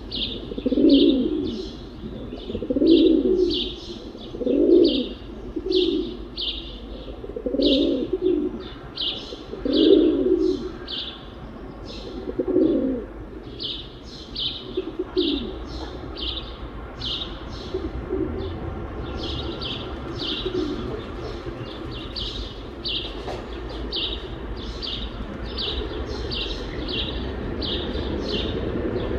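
Pigeons cooing, a low coo repeated about once a second, over steady chirping of small birds. The coos fade out about halfway through while the chirping goes on over a low background rumble that grows toward the end.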